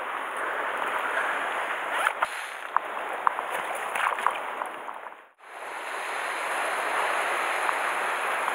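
Sea surf washing against a rocky shore, a steady rushing wash with a few light clicks in the first half. It drops out for a moment about five seconds in, then carries on.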